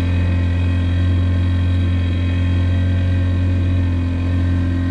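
Outboard motor of a small open fishing boat running steadily under way: a constant low drone that holds one pitch.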